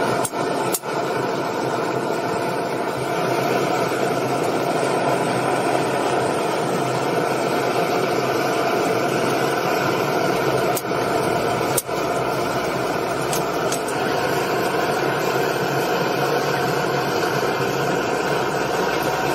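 Steady, even mechanical roar of workshop machinery with no rhythm, briefly dipping a few times near the start and again around eleven and twelve seconds in.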